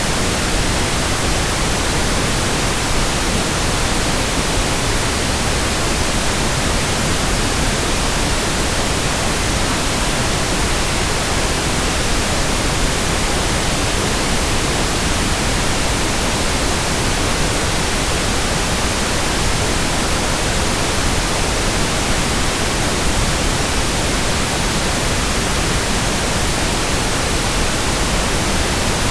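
Steady pink noise: an even, unchanging hiss spread across the whole range of pitch.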